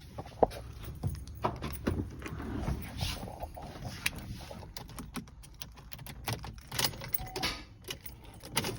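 Car keys jangling amid scattered light clicks and knocks, with a short beep near the end.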